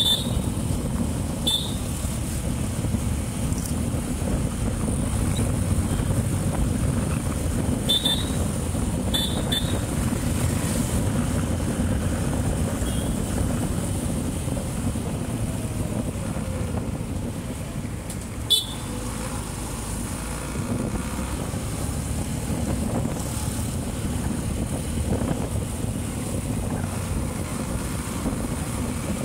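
Motorcycle riding through city traffic: its engine running steadily under a low rumble of road and wind noise. Short horn toots cut through a few times: twice near the start, twice around eight to nine seconds in, and once about eighteen seconds in.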